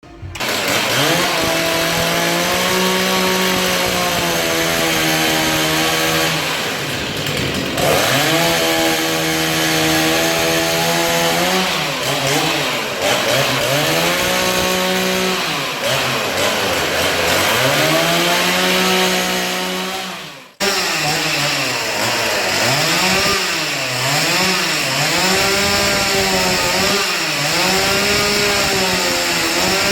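Chainsaw running at high revs, its pitch sagging and recovering again and again as it cuts into wood. After a sudden break about two-thirds through, it revs up and down in quick swoops about once a second.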